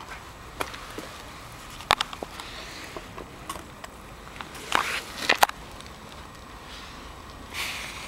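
Scattered sharp clicks and short crunching, rustling noises close to the microphone, a few a second at most, with a brief rustle about five seconds in and another near the end.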